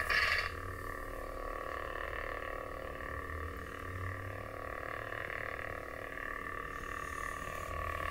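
Custom lightsaber's sound board playing its steady electronic hum, a buzzing drone, with a short louder burst in the first half second.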